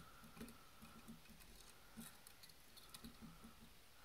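Near silence with faint, scattered small clicks from a scale model excavator being handled, its loose demolition jaws and boom parts knocking lightly.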